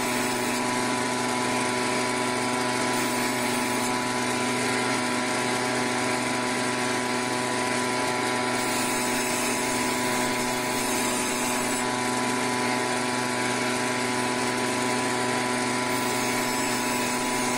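Electric band saw (bone saw) running steadily, a constant motor hum with a steady whine, its blade cutting through pieces of fish.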